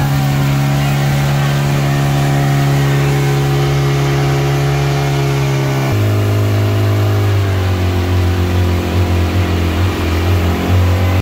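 Vehicle engine running steadily. Its pitch drops suddenly about six seconds in and then holds, a little uneven in level toward the end.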